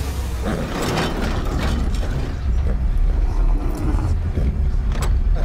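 Heavy metal gate mechanism clanking and rattling over a deep, steady low rumble, growing louder about halfway through.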